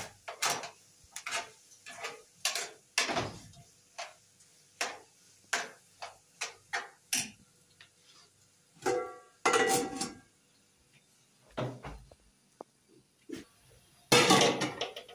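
A utensil stirring food in a metal grill pan on a gas stove: a run of short clinks and scrapes, about two a second. Around nine to ten seconds comes a pair of ringing metal clanks from the aluminium pot's lid, and near the end a loud noisy rustle.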